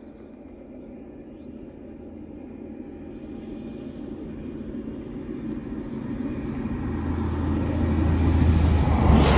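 Passenger train approaching along the line: a low rumble with a steady drone that grows steadily louder over several seconds and is loudest near the end as the train reaches the spot.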